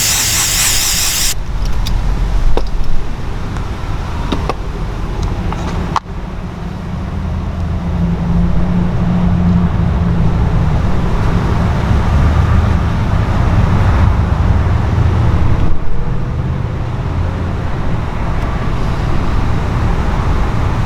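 Spray gun hissing as it lays dye onto the vinyl, cutting off sharply after about a second and a half; then a steady low rumble with a few faint clicks.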